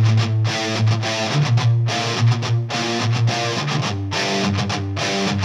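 Background rock music led by electric guitar.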